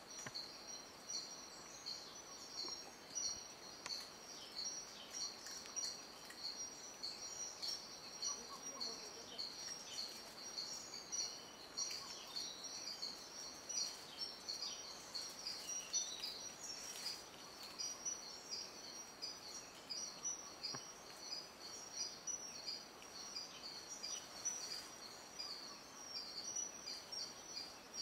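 Rainforest ambience: a steady, high-pitched chorus of insects pulsing rapidly and evenly, with a few faint calls underneath.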